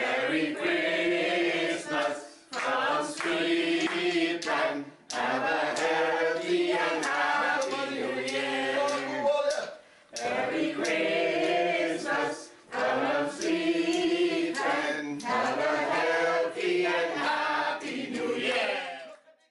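A group of voices singing together in phrases with short breaks between them, accompanied by steel pans struck with sticks.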